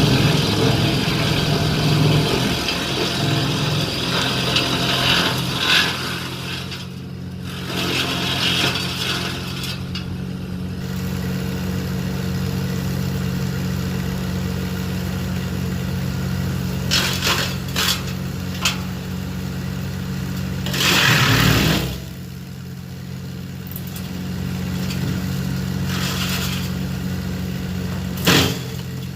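Tractor engine running steadily, with harsh noisy bursts over it in the first few seconds, again a little later, and twice toward the end.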